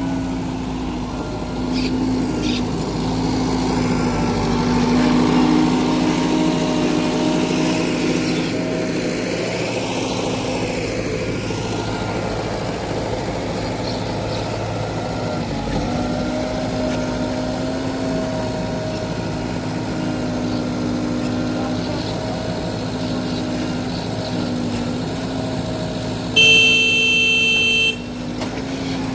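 Heavy diesel engine of a tractor or backhoe loader running steadily, its revs rising and falling a little. Near the end a vehicle horn sounds once for about a second and a half.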